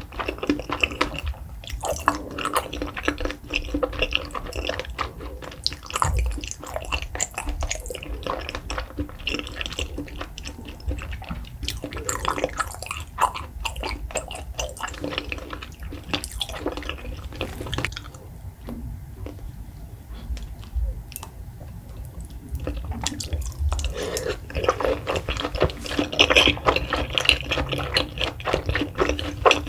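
Close-miked wet chewing of raw salmon sashimi: soft squishy mouth sounds with many small wet clicks and smacks. The chewing thins out for a few seconds about two-thirds of the way through, then comes back louder.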